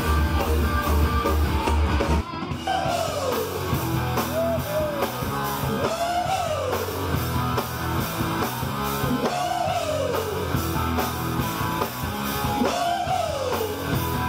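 Live rock band playing, with drum kit and electric guitar and a phrase that swoops up and down about every three and a half seconds. Different music with a heavy bass cuts off abruptly about two seconds in, as the band takes over.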